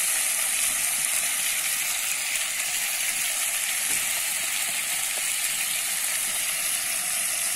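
Onion, tomato and bell pepper sizzling in oil in a pot over a wood fire: a steady, even hiss.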